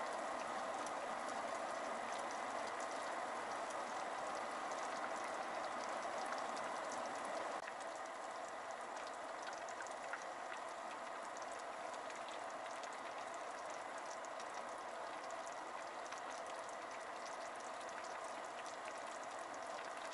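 Pot of vegetables and meat bubbling at a steady simmer in broth, a fine continuous fizz and pop of boiling liquid, easing a little about seven and a half seconds in. It is the scum-skimming stage of making stew, before the roux goes in; a light click sounds about ten seconds in.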